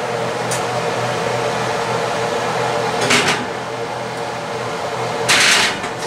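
Cast-iron Dutch oven being set into an electric oven: a couple of short scrapes of metal, the loudest near the end, over a steady hum.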